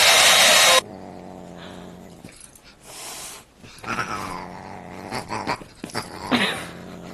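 A hand-held hair dryer blowing loudly, which cuts off abruptly about a second in. Then a dog and a Siamese cat sparring: growling, with a few short yowling calls that bend in pitch about halfway through and again near the end.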